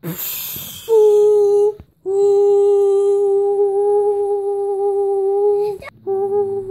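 A child humming long steady notes: a short one, then one held for nearly four seconds, then another starting near the end, after a brief rustle at the start.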